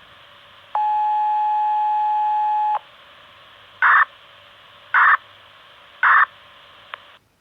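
Closing control signal tones of a Japanese municipal disaster-prevention radio broadcast, received over analog FM on an ICOM IC-R30 scanner: a steady tone for about two seconds, then three short bursts about a second apart, over radio hiss. Near the end the hiss cuts off as the transmission ends and the squelch closes.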